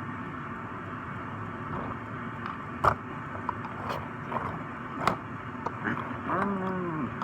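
Small die-cast toy car with swapped-on spoked wheels being rolled and handled on a hard surface: a low, steady rolling rasp with a few sharp clicks, the two loudest about three and five seconds in.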